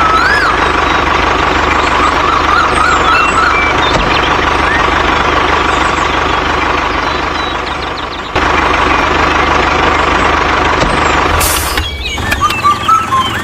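A toy tractor or road roller's motor or engine sound running steadily with a high whine, with short chirps over it. The sound breaks off abruptly about eight seconds in and again near the end.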